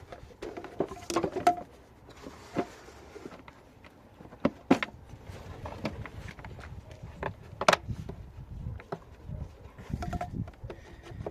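Plastic air filter housing being refitted on a Toyota Yaris engine: scattered sharp clicks and knocks as the cover and its clips are pushed into place, a few louder snaps among them.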